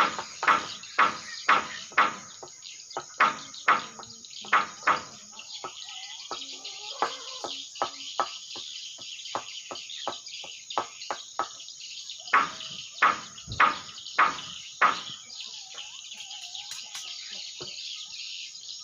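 Swiftlet chirping at a swiftlet house: a regular run of sharp chirps about two a second over a steady high twittering. The chirps are loud for the first few seconds and again about twelve to fifteen seconds in, and fainter in between.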